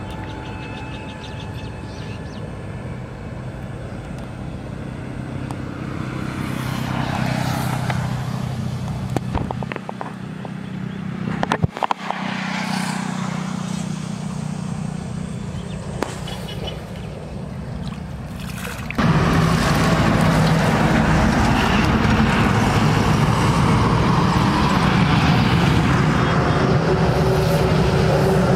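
Road traffic: motor vehicles passing by, swelling and fading a few times. A few sharp clicks come near the middle, and about two-thirds through the sound jumps to a louder, steady vehicle drone.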